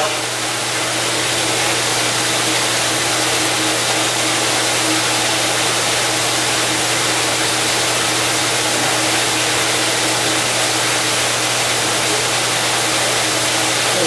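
Jackson commercial dish machine running its wash cycle: the wash pump drives a steady hiss of water spraying inside the closed cabinet, over a steady low hum.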